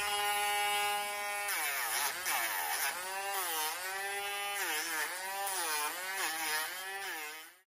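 Dremel rotary tool with a sanding drum whining at a steady pitch. From about a second and a half in, the drum is worked against a dog's toenail to grind it down, and the pitch dips and recovers over and over as it bites into the nail. The sound cuts off just before the end.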